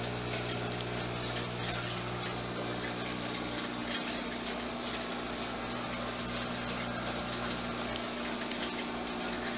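Aquarium filter and pump running: steady water bubbling and splashing in the tank over a constant low electrical hum.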